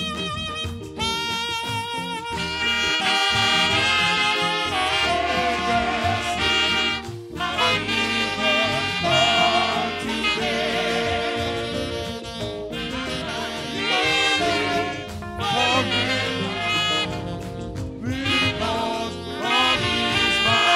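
Saxophones playing a melody over live band accompaniment, with wavering held notes.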